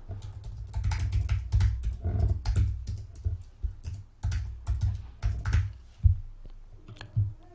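Typing on a computer keyboard: a run of irregular key clicks, each with a dull low thud.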